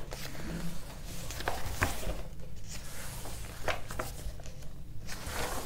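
Pages of a paperback book being turned and leafed through by hand: irregular paper rustling with a few light clicks.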